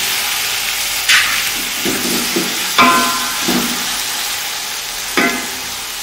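Chopped tomatoes sizzling in hot oil in a metal pot while a spatula stirs them. The spatula knocks against the pot three times, about a second, three seconds and five seconds in, and the last two knocks ring briefly.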